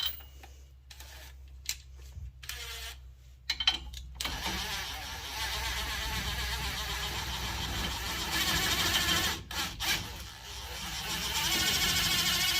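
A few light metal clicks, then a power tool running hard for about five seconds, a brief let-up, and running again near the end, its sound a fast rattling buzz.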